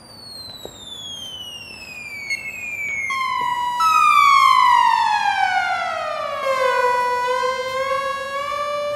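Synthesizer tones through studio monitor speakers: several overlapping notes, rich in overtones, gliding slowly downward in pitch. The loudest enters about four seconds in, sinks for about three seconds, then levels off and edges back up near the end.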